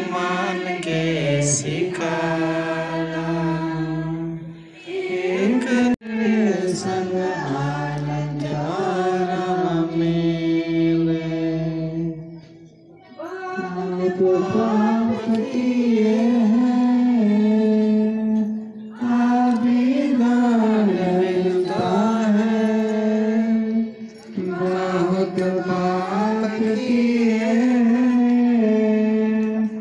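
Voices singing a slow chant in long held phrases, with a short break for breath every five to seven seconds.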